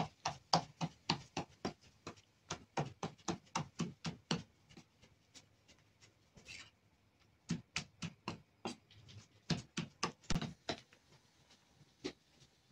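Large kitchen knife chopping chiles on a maguey leaf, quick even strokes about three to four a second. The chopping pauses for a few seconds in the middle and resumes about seven and a half seconds in.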